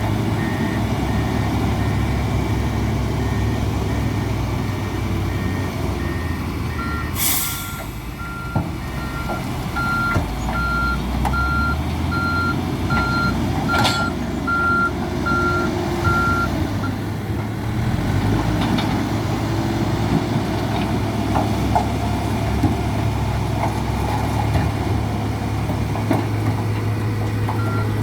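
Hidromek 102S backhoe loader's diesel engine running steadily, with its reversing alarm beeping at even intervals as it backs up. There is a short hiss about seven seconds in, and the beeping drops out for a stretch near the end before starting again.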